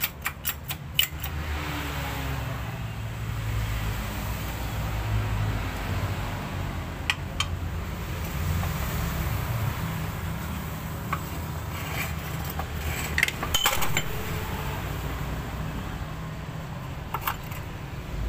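Light metallic clicks and clinks of a supercharger's steel gear and aluminium housing being handled during reassembly: a quick run of clicks in the first second, then a few scattered clinks, with a cluster around two thirds of the way through. A steady low hum runs underneath.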